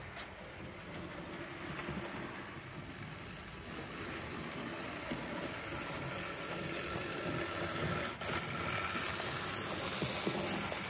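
Model steam train running on the layout track, a steady rolling rumble with a hiss that grows louder as the saddle tank locomotive and its coaches approach and pass close by.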